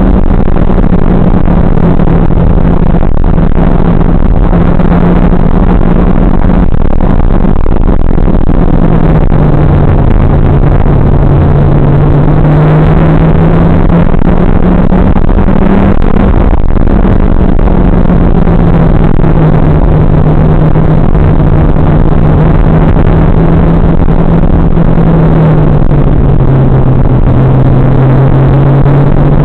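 Mitsubishi Evo X GSR's turbocharged 2.0-litre four-cylinder running hard on track, its note holding and then dropping or rising in pitch several times as the revs change. The recording is loud, muffled and distorted throughout.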